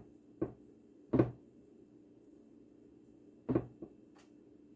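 A utensil knocking a few times against a glass baking dish while shredded chicken is spread in it: about four short knocks, the loudest about a second in and again past the middle, over a faint steady hum.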